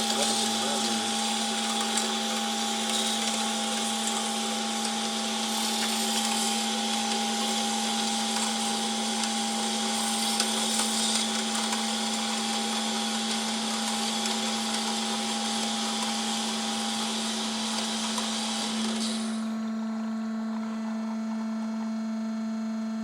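PEGAS 290 A-CNC-F automatic band saw running: a steady hum with a hiss on top. The hiss cuts off about 19 seconds in, leaving the hum.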